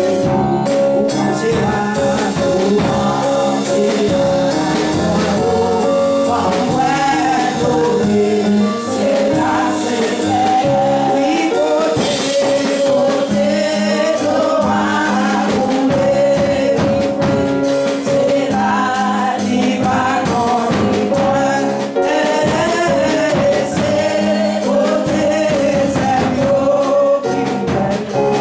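Gospel choir singing with a backing band, a steady drum beat under the voices.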